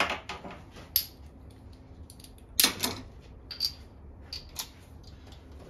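Scattered sharp metallic clicks and clinks of hand tools being picked up and handled, about six in all, the loudest a quick double clatter about two and a half seconds in.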